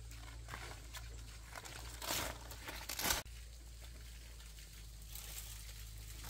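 Rustling and crunching handling noise: faint scattered ticks, then two louder rustling bursts about two and three seconds in.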